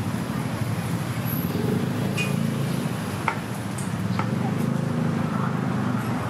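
Street stall ambience: a steady low rumble with about three sharp metallic clinks, like utensils against metal.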